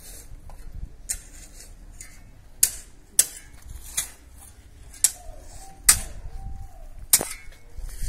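Sharp tool strikes on a building site, about seven hard knocks at uneven intervals of roughly half a second to a second and a half, over a low background rumble.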